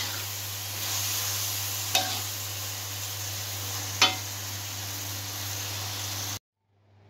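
Tofu and tempeh in red chilli paste sizzling in an aluminium wok while a metal spoon stirs, with two sharp clinks of the spoon against the pan about two and four seconds in. The sound cuts off suddenly near the end.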